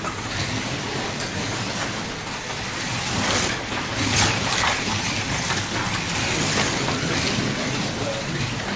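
Scalextric slot cars running around the track, a steady whir of their small electric motors and tyres on the track, swelling briefly about four seconds in as cars pass close.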